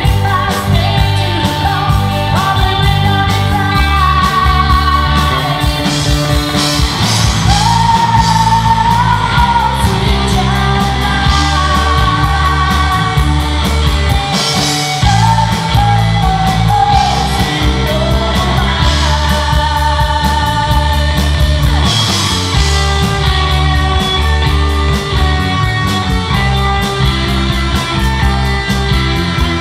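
Live rock band playing loud through a PA: a woman singing lead over electric guitars, bass guitar and drums.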